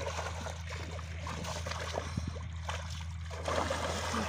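Hands groping and churning shallow muddy water, with repeated small splashes and trickling that grow louder about three and a half seconds in. A steady low hum runs underneath.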